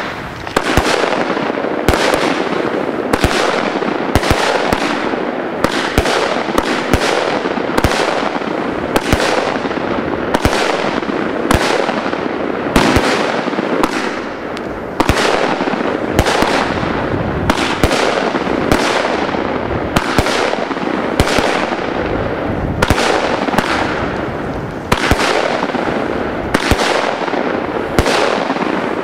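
Weco Rockstar firework battery firing a long, rapid sequence of shots: sharp launch pops about once or twice a second, with the noise of the bursting shells filling the gaps between them.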